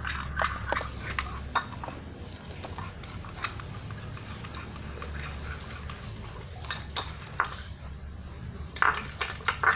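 Spoon stirring glue mixed with borax slime activator, clicking and scraping against the container in irregular strokes as the slime forms, busier near the end.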